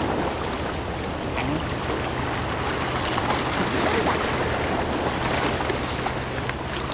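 A small fishing boat's engine running steadily as it passes, a low even hum under a steady hiss of wind and water.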